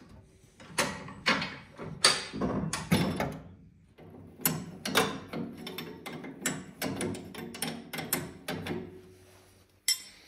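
Metal-on-metal clicks and clunks of a spanner working loose the top bolt of a Unimog 411's front coil-spring mount, in irregular strokes with a quicker run of clicks in the second half.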